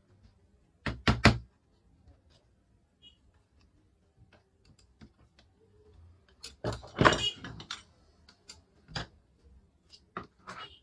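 Hand tools knocking and tapping on a metal plate at a workbench: three quick sharp strikes about a second in, a busier run of knocks with some scraping around seven seconds in, then a few single taps.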